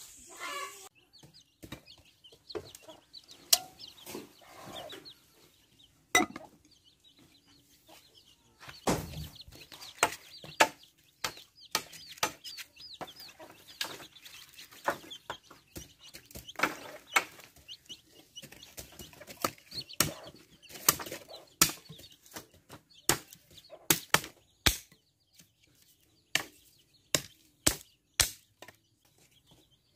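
Chickens clucking, then a run of sharp chops in the last third as a machete-type blade strikes thin dry sticks being cut into firewood.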